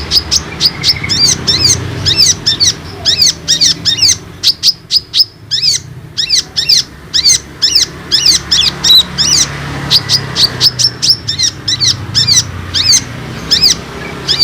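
Kolibri ninja (konin) sunbird singing a fast, unbroken run of short, high, sweeping chirps at several notes a second, with a short pause about five seconds in. The song is used as a lure to get other konin birds to respond and sing.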